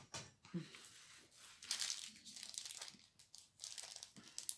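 Plastic packaging crinkling in irregular bursts as it is handled.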